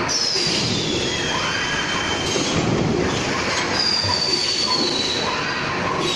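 Robotic bag palletizing line machinery running with steady mechanical clatter, twice breaking into a high squeal that slides down in pitch over a second or two.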